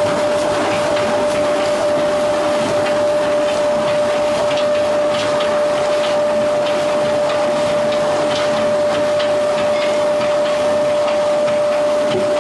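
Veneer peeling and clipping lathe running as it peels a log into veneer: a steady machine noise with a constant whine, a rasping of wood and scattered small ticks.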